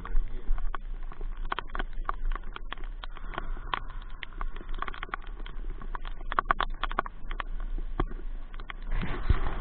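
Rain falling, with irregular drops landing close to the microphone as sharp ticks and taps over a steady patter. The patter grows denser and louder near the end.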